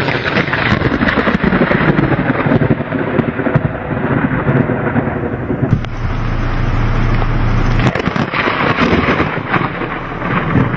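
Thunder from a thunderstorm: a sudden crack, then a long rolling rumble that swells again near the end.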